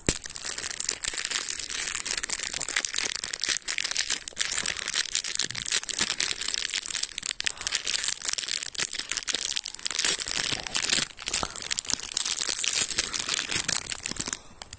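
A thin clear plastic bag holding an Easter egg's surprise toy being crinkled and torn open by hand: a continuous crackling that stops just before the end.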